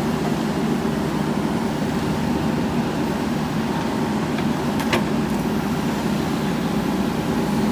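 JCB backhoe loader's diesel engine running steadily, with a single sharp knock about five seconds in.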